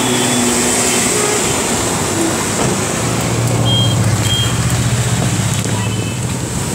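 A small vehicle's engine running, with steady road and tyre noise on a wet road; the low engine hum grows stronger about three seconds in, and two short high beeps sound near the middle.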